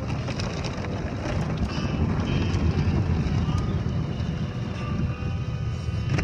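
Automatic car wash heard from inside the car: spinning cloth brushes slapping and scrubbing over the windshield and body through water spray, over a steady low rumble of the wash machinery, with frequent short slaps.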